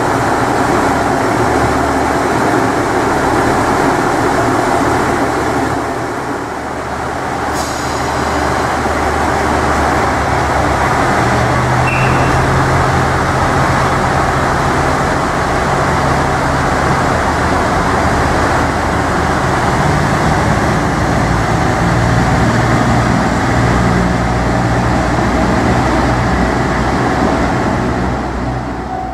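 JR Central KiHa 85 diesel railcar pulling out past the platform, its diesel engines running under power. The engine note steps up twice as it gathers speed.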